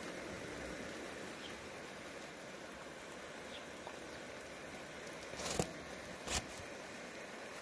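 Steady outdoor background hiss, with two sharp knocks about five and a half and six and a half seconds in.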